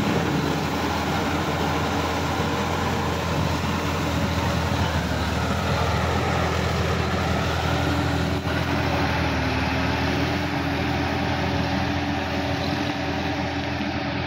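Diesel tractor engine running steadily under load as its rear rotary tiller churns through flooded mud. Heard close at first; from about eight seconds in it is farther off and duller.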